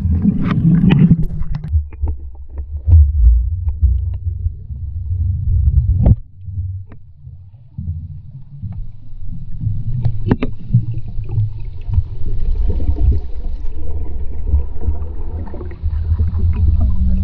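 Swimming heard from under water: a loud, muffled low churning of water with bubbling and scattered knocks, dropping quieter for a couple of seconds about six seconds in.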